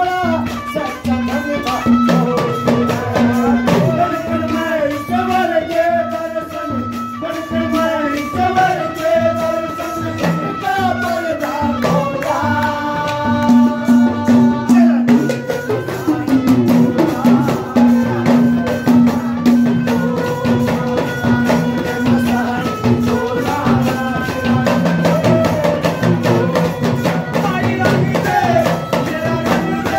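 Indian devotional folk music: a bulbul tarang (keyed 'banjo') plays the melody over a steady drone note, with fast, busy rattling hand percussion throughout.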